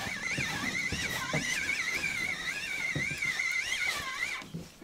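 Spinning reel being cranked to bring in a hooked zander: a wavering whine that rises and falls with each turn of the handle and stops shortly before the end, with a few light knocks of handling.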